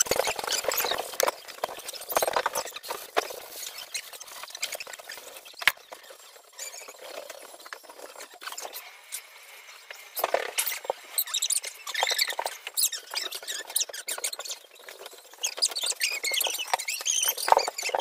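Plastic drop sheets crinkling and rustling as a person moves about on and against them, in irregular scratchy bursts with small clicks. It eases off for a few seconds in the middle and picks up again in the second half.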